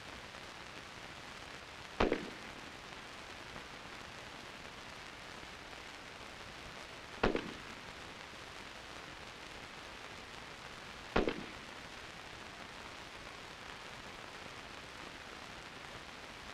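Three single shots from an M16 rifle, about five and four seconds apart, each a sharp crack with a short tail, fired while zeroing on a 25-meter target. They sound over a steady hiss.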